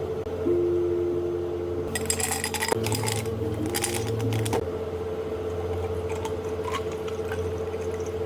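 Cafe drink-making sounds over a steady hum from the counter machines. A noisy burst of glass and liquid handling starts about two seconds in and lasts a couple of seconds.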